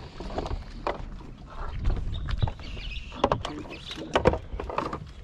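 Irregular knocks, clicks and rattles of gear being handled on a boat deck, over a low rumble of wind on the microphone.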